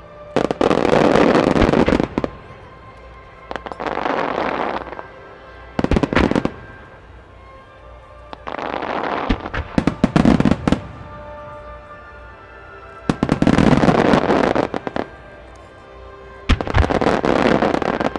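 Star mine fireworks barrage: about six volleys of rapid shell bursts and crackling, each lasting a second or two with short gaps between, over music from loudspeakers.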